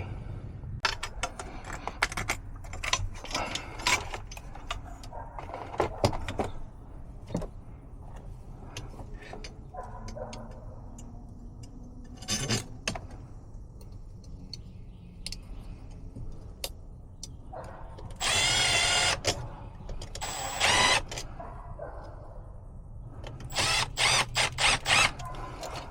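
Metal clicks, taps and clatter of tools and parts as a replacement condenser fan motor is fitted, with two short runs of a power drill about two-thirds of the way in.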